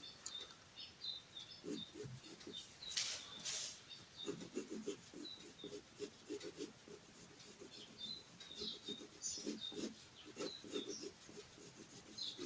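Faint drawing strokes on paper: a run of short, quick rubbing and scratching sounds, thickest in the second half.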